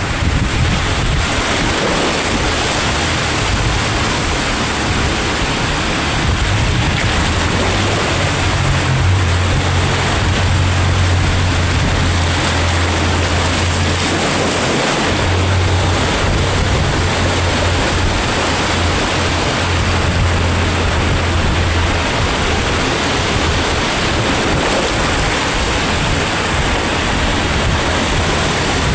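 Sea waves washing and breaking on the shore, a steady loud rush of surf. A low rumble sits under the surf through the middle stretch.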